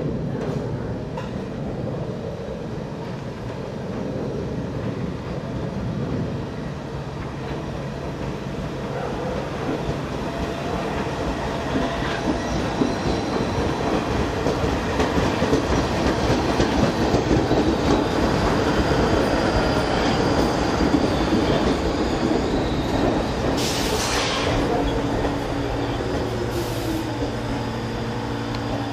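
New York City Subway train on the IND Rockaway line running along the track, a steady rumble of wheels on rail that builds to its loudest midway. Two short hisses come near the end, then a steady hum.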